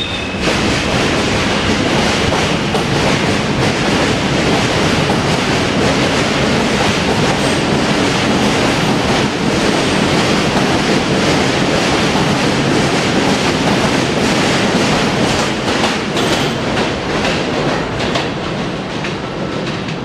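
R160A-2 subway train pulling out of the station and running past close by: a loud, steady rumble of steel wheels on rail with clicks over the rail joints. It begins to fade in the last couple of seconds as the last car clears.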